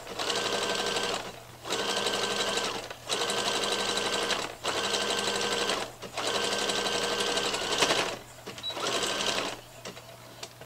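Domestic electric sewing machine stitching in short stop-start runs, about six in a row of a second or so each, as a rib cuff is sewn onto a sweatshirt sleeve. It stops near the end.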